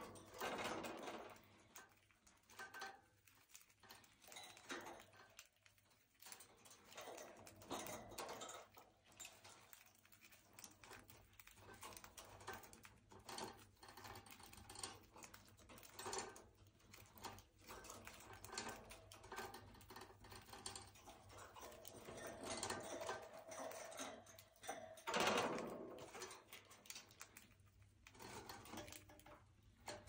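Budgerigars pecking and cracking seeds from a millet spray: a faint, fast run of small clicks and ticks, with a louder flurry about 25 seconds in.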